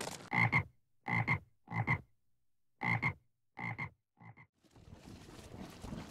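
A frog croaking six times in a steady series, each croak a quick double note, the last one fainter. A faint steady hiss comes in near the end.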